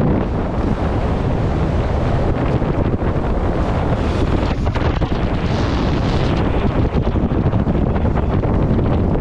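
Strong wind buffeting the microphone over the rush of water along the hulls of an Extreme 40 racing catamaran under sail, with a steady low rumble throughout.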